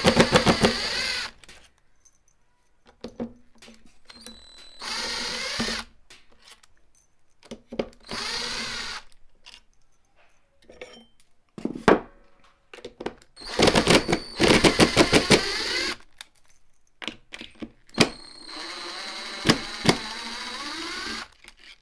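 Cordless drill-driver turning hex-head screws in the carriages of a linear guide rail, running in five short bursts whose whine rises and falls in pitch, with clicks and knocks between the bursts.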